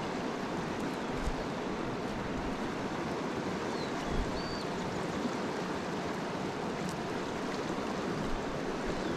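Steady rush of flowing river water, with a brief faint high whistle about four seconds in.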